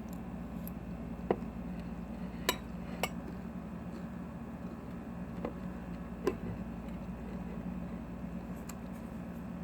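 A fork clinking against a salad bowl about six times, spread out, as salad is picked up and eaten, over a steady low hum.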